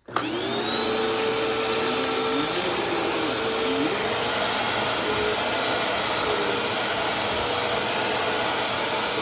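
Bissell vacuum cleaner switched on, its motor whine rising to full speed within the first half second, then running steadily.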